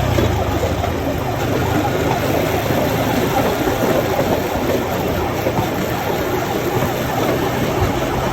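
Bamboo train (norry) under way: its small engine running steadily, with a continuous rumble of the platform rolling on the rails.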